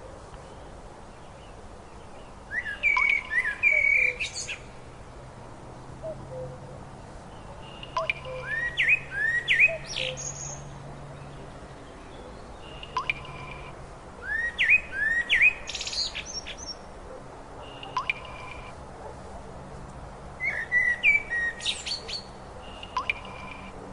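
Songbird singing: a phrase of quick rising chirps repeats about every six seconds, four times, with short single calls in between.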